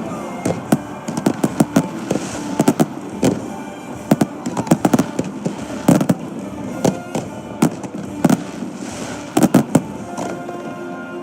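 Aerial fireworks going off in rapid volleys of sharp bangs and crackles, thinning out near the end, over a song playing underneath.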